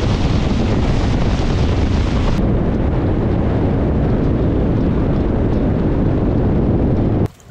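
Motorboat running at speed: heavy wind buffeting the microphone over the rush of water along the hull. The high hiss of spray falls away about two and a half seconds in, and the sound cuts off sharply near the end.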